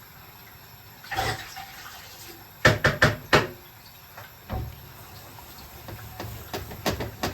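Kitchen handling sounds: a short rush of noise, then a quick run of four sharp knocks of cookware or utensils, with a few lighter knocks later.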